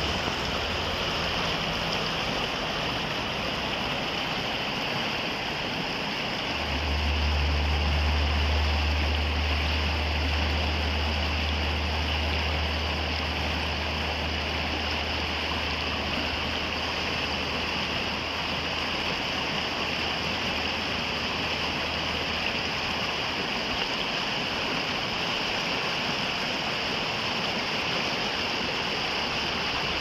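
River water rushing steadily over and around boulders in shallow rapids. A low rumble joins in about a quarter of the way in and dies away about three-quarters through.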